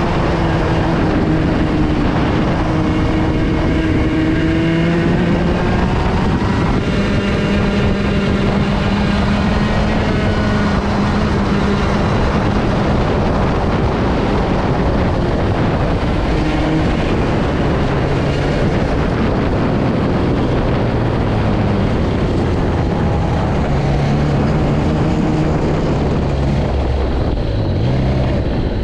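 Woltjer-built racing kart engine heard onboard at speed, its pitch rising and falling as the driver accelerates and lifts through the corners and straights.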